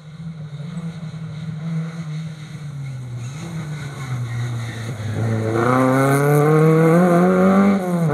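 Rally car engine at high revs approaching, growing steadily louder over several seconds. It is loudest in the last few seconds, its pitch climbing, then dipping briefly near the end.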